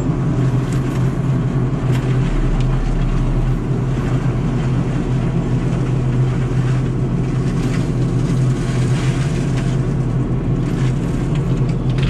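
Steady drone of heavy diesel machinery heard from inside a machine cab, with the FAE mulcher head on a Prime Tech PT175 tracked carrier grinding up a brush pile. A strong, even low hum runs under a rough constant noise, with a few scattered crackles.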